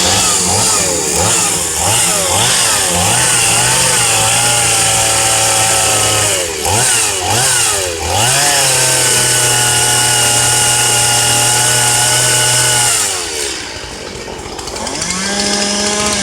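Two-stroke chainsaw revving in quick blips of the throttle, then held at a steady high pitch for several seconds. The level drops off briefly and the engine picks up again near the end.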